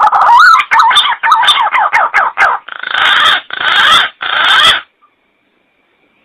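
Green pigeon (punai) calling: a quick run of warbling, gliding whistled notes, then three harsh, rasping bursts, the call stopping about three-quarters of the way through.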